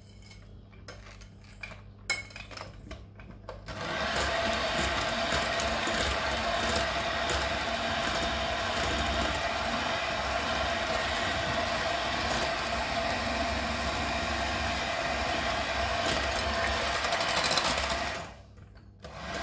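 Hand-held electric mixer running steadily, its beaters whisking cheesecake batter as eggs are beaten in one at a time. The motor starts about four seconds in and cuts off shortly before the end, then starts again.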